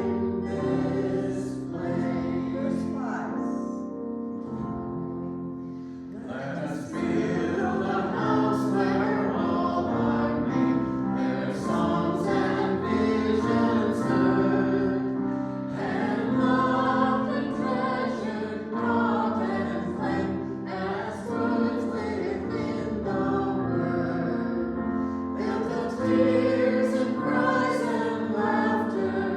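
Voices singing a hymn together over steady held accompaniment notes. The singing drops back briefly a few seconds in, then comes in fuller for the rest.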